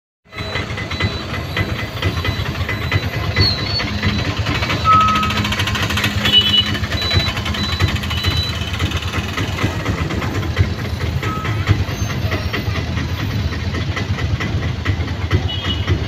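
Vehicle engine running with road and traffic noise, heard from inside a moving vehicle in slow night traffic: a steady, dense low rumble.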